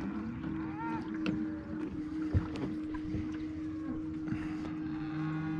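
A small boat's motor humming steadily at one pitch, with scattered light clicks and knocks.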